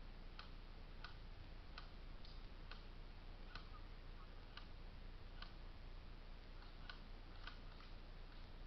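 Faint sharp ticks, about one a second and not quite evenly spaced, over a low steady hum.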